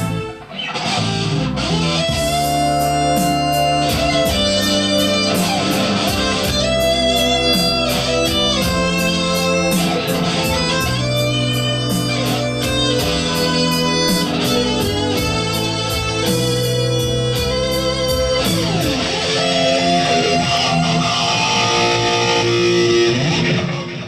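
Instrumental music led by guitar, with bass notes under it and a steady beat, stopping shortly before the end.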